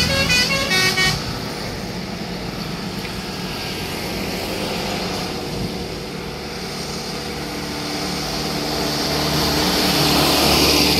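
A coach's multi-tone musical horn plays a stepping melody and stops about a second in. After that comes steady road traffic noise of engines and tyres, growing louder near the end as vehicles come close.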